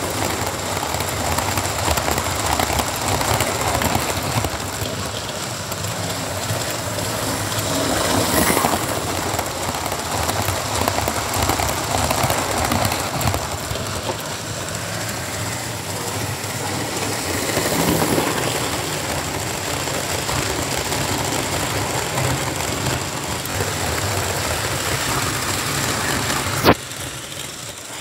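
Model railway train running past: a small electric model locomotive hauling a rake of coaches, its motor whirring and its wheels rattling over the track. A sharp click comes near the end, and the sound is quieter after it.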